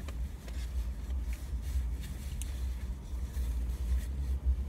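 Low steady hum of a car's idling engine heard inside the cabin, with faint scattered clicks and rustles as food is handled and eaten.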